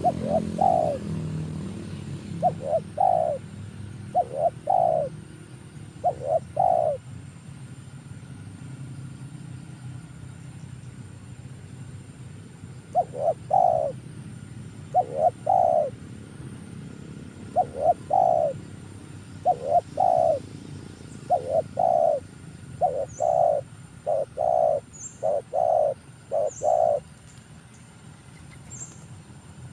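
Spotted dove cooing: short rising coos in groups of two or three, repeated every second or two, with a pause of several seconds in the middle. A low rumble fades out over the first few seconds, and faint high chirps come near the end.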